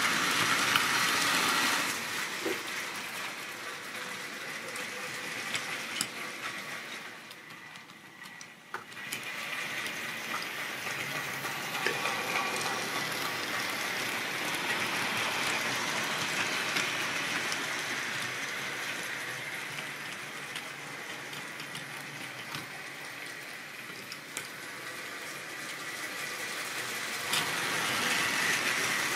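Model train running round the layout track: a steady rattle and whirr of its motor and wheels, loudest as it passes close at the start and again near the end, dipping to its quietest about eight seconds in, with a few sharp clicks.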